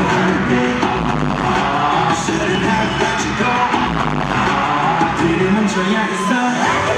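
Loud live pop music with singing over an arena sound system. The deep bass drops away about six and a half seconds in.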